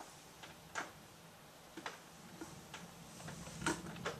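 Raindrops striking the window glass and sill in scattered, irregular ticks, with a faint low rumble swelling near the end.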